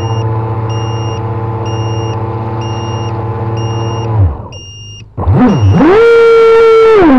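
Brushless motors of a twin jet-drive RC boat whining at a steady low pitch. The whine cuts out about four seconds in, swoops down and back up, then holds at a much higher pitch as the throttle opens, and drops slightly near the end.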